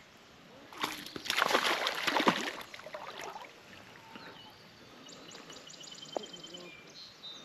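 Water splashing hard for about two seconds, with sharp slaps. Later a bird sings a short rapid trill of evenly spaced high notes.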